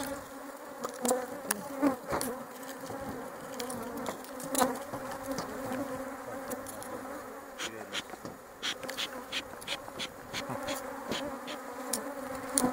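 A swarm of honeybees buzzing around open beehives, a steady hum. Scattered sharp clicks and light knocks, more frequent in the second half, come as the hive covers are handled.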